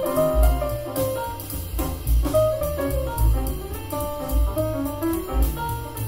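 Instrumental jazz played through PMC Prodigy 1 bookshelf speakers and picked up by microphones in the room. A melody line runs over chords, with deep bass notes about once a second.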